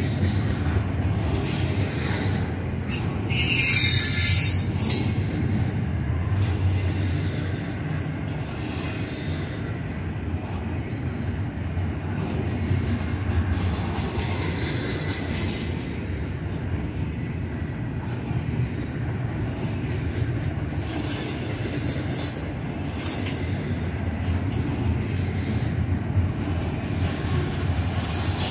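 Double-stack intermodal container well cars rolling past: a steady rumble and clatter of steel wheels on the rails, with a brief loud high-pitched wheel screech about four seconds in.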